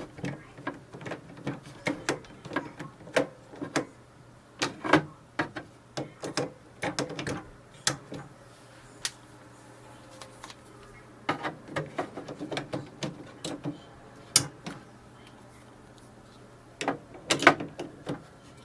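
Plastic clicks and taps as HP OfficeJet Pro 8023 setup ink cartridges are handled and pressed down into the printer's cartridge chamber, snapping into their locked positions, in irregular clusters over a faint steady hum.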